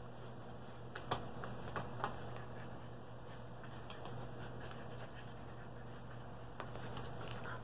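Shetland sheepdog puppies pawing and scrabbling at a fabric mesh pop-up hamper: scattered soft taps and rustles, clustered about a second in and again near the end, over a steady low hum.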